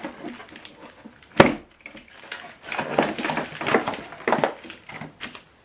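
Handling noise from hardware being moved about: a sharp knock about a second and a half in, then a string of irregular clicks and rustles.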